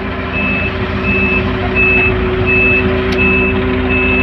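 Grove GMK5130 mobile crane's engine and hydraulics running steadily as the telescopic boom is extended, with a high-pitched warning beeper sounding steadily at about one and a half beeps a second.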